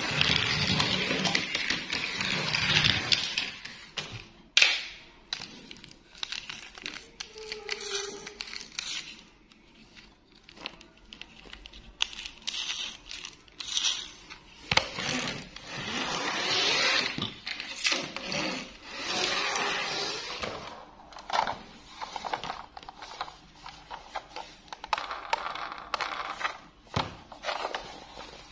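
Small plastic toy trains handled with cloth-gloved hands: rustling, crinkling and scraping of plastic and fabric, broken by many sharp little clicks of plastic parts.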